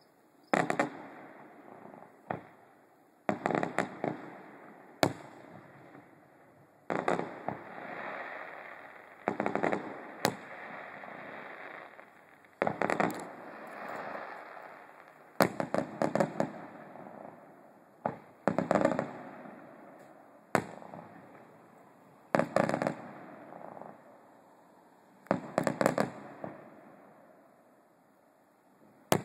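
Aerial fireworks shells bursting about a mile off, roughly a dozen booms two to three seconds apart, each followed by a rolling echo that dies away before the next.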